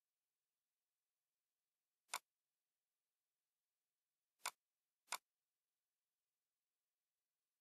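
Three computer mouse clicks: one about two seconds in, then two about half a second apart a little later, with silence between.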